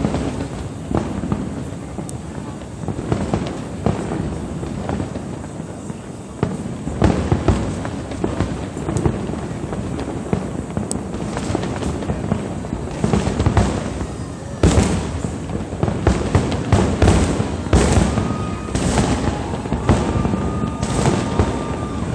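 Aerial fireworks bursting in a dense, continuous barrage of bangs and crackles over a steady rumble, getting heavier about seven seconds in and again in the second half.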